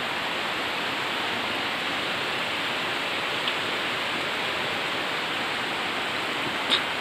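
Steady, even hiss of water, with a faint tick about three and a half seconds in and a short sharper sound near the end.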